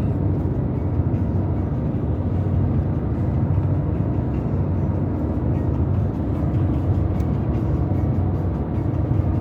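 Inside a moving car's cabin: steady road and engine noise with music playing in the car underneath.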